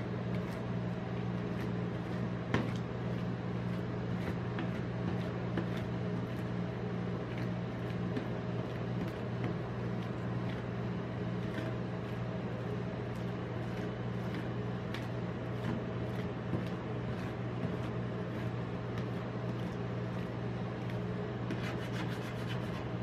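Steady low hum of a rolled-ice-cream machine's chilled steel plate, with scattered light scrapes and taps of a metal spatula spreading and scoring ice cream on the frozen plate; one sharper tap about two and a half seconds in.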